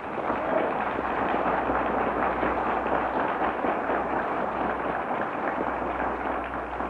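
Audience applauding: dense clapping that starts abruptly, holds steady, and tapers off near the end.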